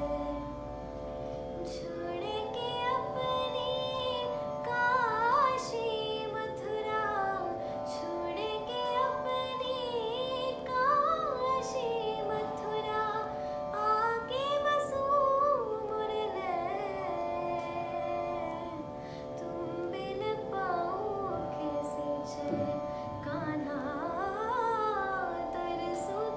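Solo female voice singing a slow Hindi devotional song (bhajan), in long gliding, ornamented phrases over a steady held drone accompaniment.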